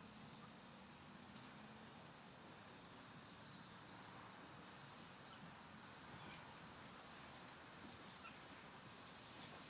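Near silence: faint outdoor background with a thin, steady high-pitched whine running throughout.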